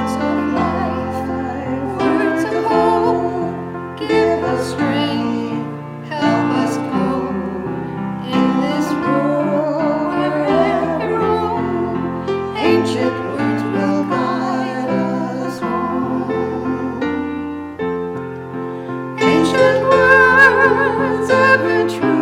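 Music: a singer with a strong vibrato accompanied by piano, the voice swelling loudest near the end.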